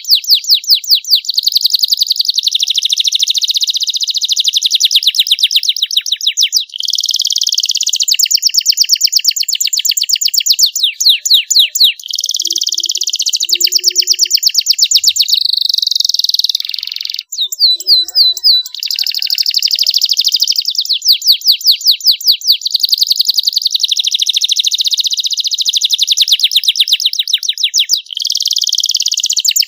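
Young domestic canary singing a long, nearly unbroken song of fast trills of repeated notes and rolling, buzzy phrases, with a short pause about halfway through.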